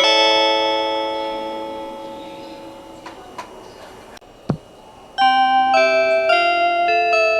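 Onboard chime of the Joban Line limited express Hitachi. The last notes of one chime ring on and fade over about four seconds, and a short low thump comes about four and a half seconds in. A little after five seconds the chime starts again as a quick melody of bell-like notes.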